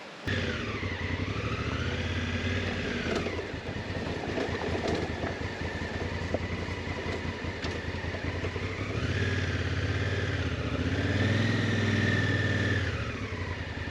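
Motorcycle engine running under way, its pitch rising and falling as the bike speeds up and eases off, once in the first few seconds and again over the last five.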